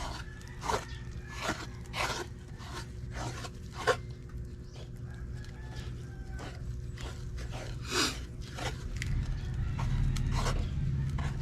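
A series of short, irregular scraping or crunching strokes, several in the first few seconds and then fewer, over a steady low hum that grows a little louder near the end.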